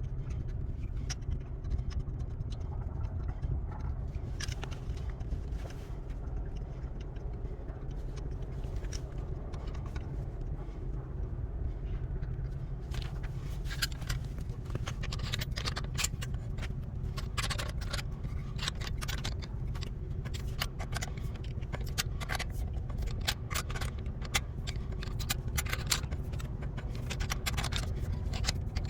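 Hand tools scraping and clicking at a car tyre during a puncture repair, over a steady low rumble. The clicks and scrapes come thick and fast from about halfway through.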